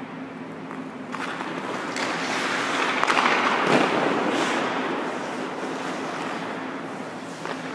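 Hockey skates scraping and carving on rink ice, with a sharp crack of a stick shooting a puck about three seconds in, followed by the loudest part: a long scrape of ice as the goalie drops and slides in the butterfly. A steady low hum runs underneath.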